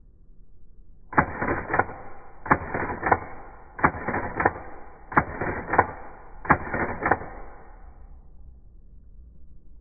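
Sony A7 III's newly replaced focal-plane shutter firing five times, about 1.3 s apart, each firing a quick clatter of several clicks as the curtains run and the charge unit recocks them. The clean, regular firing is the sign of the new shutter assembly and charge unit working.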